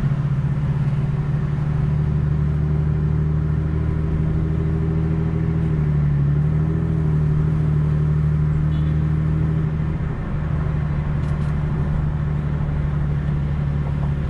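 Car engine running steadily with a low, even drone; its pitch dips briefly about six seconds in.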